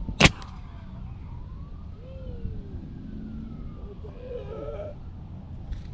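Compressed-air water rocket launching: one short, sharp blast about a quarter second in as the pressurised water and air release from the bottle. A faint siren wails slowly up and down behind it.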